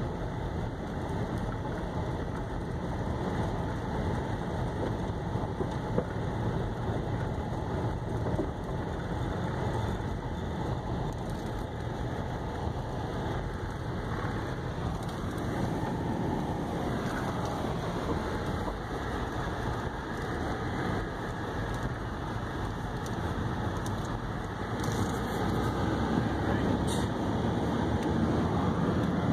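An Acura driving on a gravel road, heard from inside the cabin: steady tyre crunch and road noise over the engine, with a few sharp ticks of stones. Near the end the car reaches pavement and the rumble grows a little louder and deeper.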